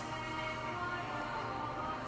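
Background music with sustained held notes.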